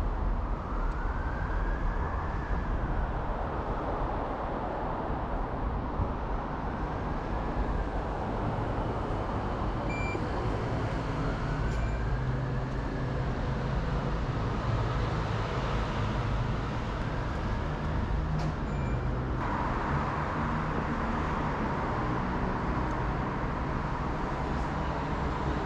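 Docklands Light Railway train heard from inside the car: a steady low rumble and hum, with a whine that rises and falls in pitch about every five seconds. Two short beeps come about ten and twelve seconds in, and from about nineteen seconds in the higher hiss grows louder.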